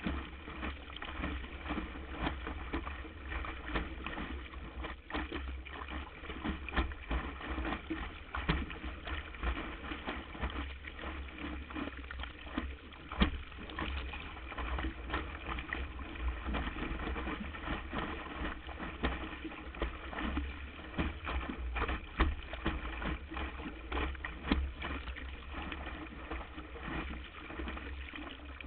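Water rushing and splashing along a windsurf board under sail, with many quick slaps of spray and small chop against the board and a steady low rumble underneath.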